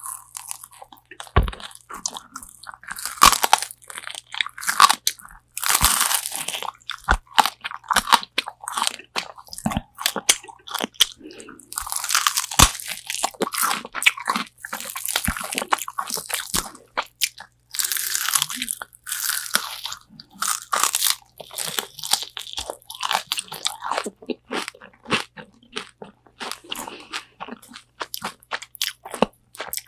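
Close-miked crunching of crispy Korean fried chicken wings being bitten and chewed: irregular clusters of sharp, crackling crunches with short pauses between bites.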